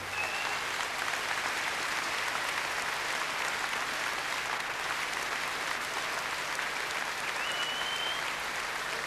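A large indoor audience applauding steadily, starting all at once. A short high whistle sounds briefly at the start and again, slightly rising, near the end.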